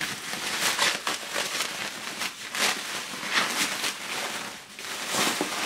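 Plastic bubble wrap crinkling and rustling in uneven strokes as it is handled and pulled away from a wrapped package.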